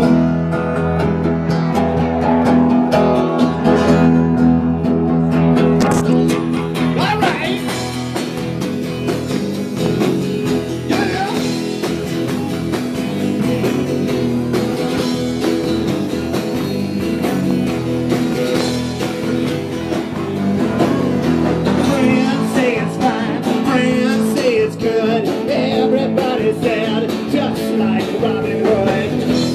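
A live band playing a song: electric guitar, drums and a singer at a microphone.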